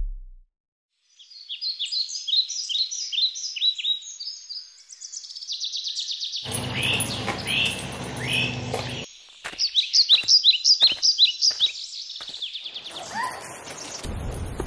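Songbirds singing, with short chirping phrases repeated over and over after a second or so of silence. A low wash of background noise comes in about halfway through, and a run of short sharp sounds follows.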